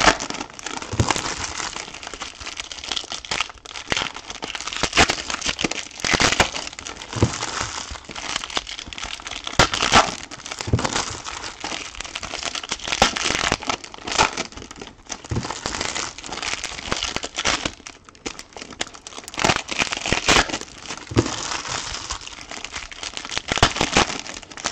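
Foil wrappers of Topps trading-card packs being crinkled and crumpled by hand: an irregular, continuous run of crackles and rustles.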